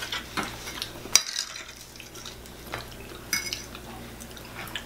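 Metal forks clinking and scraping against dinner plates in a few separate light knocks. One clink, a little past the middle, rings briefly.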